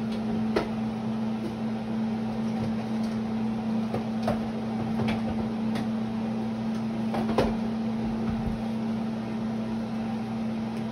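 A steady low electrical hum from a running kitchen appliance, with a handful of light clicks and knocks from kitchen items being handled; the sharpest click comes about seven seconds in.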